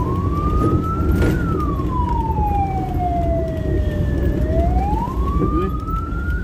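Ambulance siren wailing: one tone that falls slowly for about three seconds, then climbs again near the end, over a steady rumble of engine and road noise.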